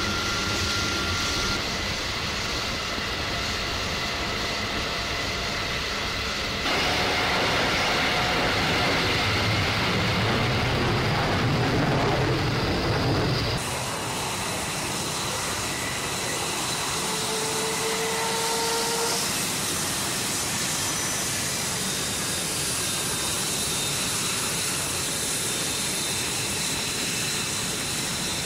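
F-22 Raptor jet engines idling on the ramp: a steady rushing hiss with a faint high turbine whine. The sound changes abruptly twice, growing louder with more low rumble about seven seconds in, then hissier and thinner about fourteen seconds in.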